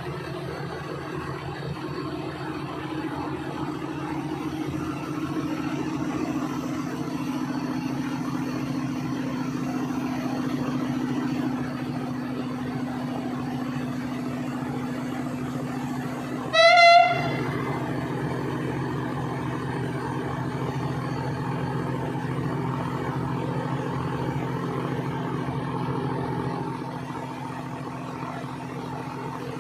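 Diesel engines of railway track-maintenance machines running steadily as they shunt, with one short horn toot a little past halfway, the loudest sound.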